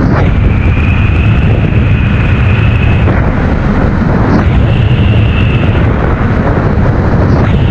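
Wind buffeting the microphone of a Nami Burn-E electric scooter at speed, with a high electric-motor whine under throttle that sounds for about three seconds, cuts out, and comes back briefly in the middle and again near the end.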